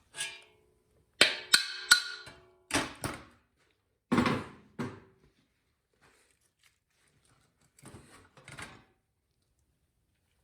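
Metal engine parts clanking and knocking during a small-engine teardown: a string of sharp clanks, some with a short metallic ring, most of them in the first five seconds and two softer ones near the end.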